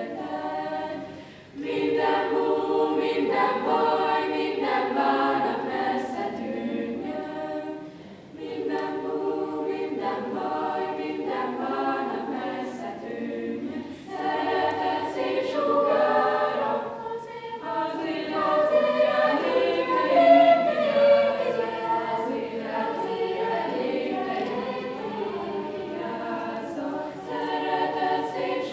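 A choir singing a cappella, in sung phrases with brief pauses between them.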